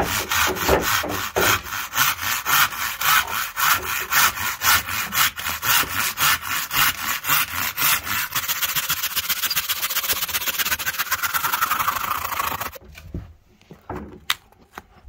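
Handsaw cutting down through a skirting board with fast, even back-and-forth strokes, which turn into a quicker, smoother rasp before the cut finishes and the sawing stops. A few light knocks follow.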